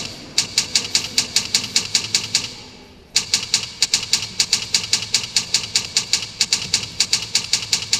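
Typewriter keys clacking in a steady rapid run, about six strokes a second. The clacking fades away a little before halfway and starts again abruptly about three seconds in.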